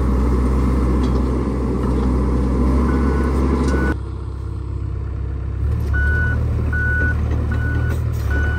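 John Deere 85G excavator's diesel engine running with a steady low drone, and its travel alarm beeping about once every three-quarters of a second from about three seconds in. The engine note drops suddenly about four seconds in and picks up again shortly before six seconds.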